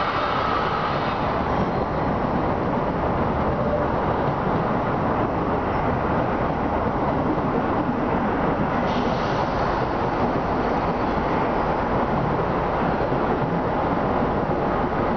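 Diesel multiple-unit commuter train approaching and running past below, a steady rumble of engine and wheels on the rails.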